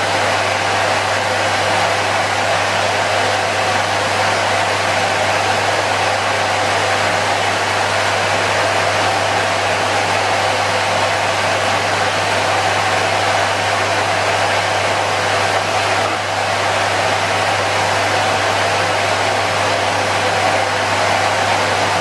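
Henry vacuum cleaner motor running steadily, a continuous airy whine with a low hum underneath.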